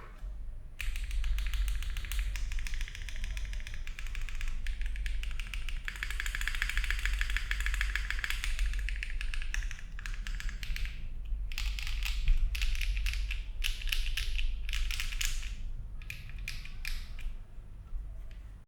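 Typing on a Mode Envoy mechanical keyboard with HMX Cheese linear switches, an FR4 plate, GMK keycaps and no case foam: a fast, steady run of keystrokes that breaks into short bursts with brief pauses in the last third.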